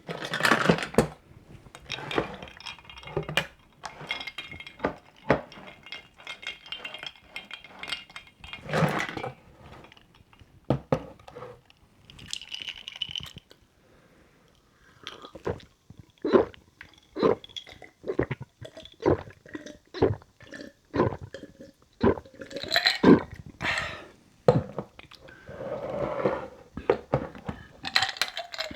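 Ice cubes clinking and knocking against a glass and a kettle, with stretches of water being poured between the sharp clinks.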